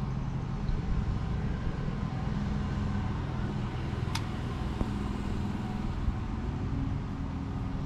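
Steady low motor hum with a few held tones, one rising slightly in pitch near the end, and a single sharp tick about four seconds in.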